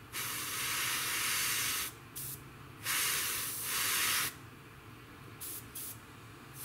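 Airbrush spraying a metallic lacquer coat in bursts of hiss: two long bursts of about a second and a half each, with a brief puff between them.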